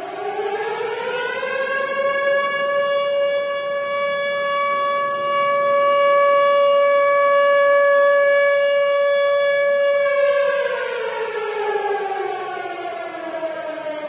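Tornado siren wailing: its pitch rises over about two seconds, holds one steady tone for about eight seconds, then slowly falls, starting to rise again right at the end.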